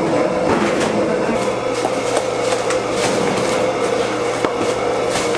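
Restaurant wok station with a high-output gas burner and extractor running: a loud steady rush with a constant hum, and scattered clicks and clatter from the pan and utensils.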